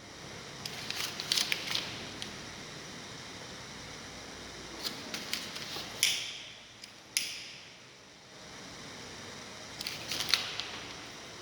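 Scattered sharp clicks and short scratchy bursts, some in quick clusters and a few fading over half a second, from a flame being lit to set a piece of paper burning.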